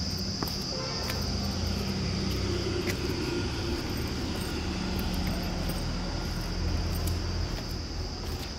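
Steady high-pitched drone of insects in the trees over a continuous low rumble.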